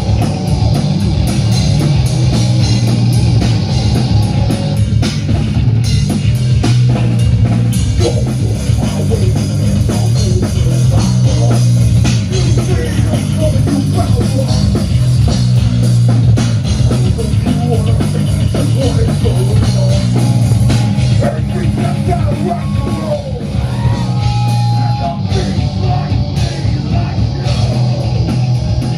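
Heavy metal band playing live: distorted electric guitar, bass guitar and drum kit at full volume.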